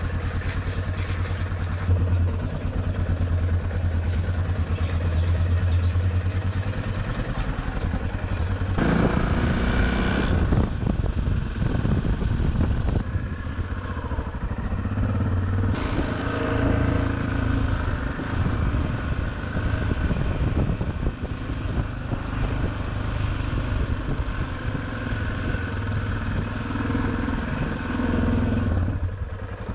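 Yamaha Ténéré motorcycle engine running steadily at low revs, then louder and more uneven from about nine seconds in as the bike rides on.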